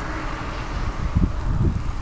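Wind gusting on the microphone in irregular low rumbles, while the tyre hiss of a car that has just passed on the snowy road dies away about half a second in.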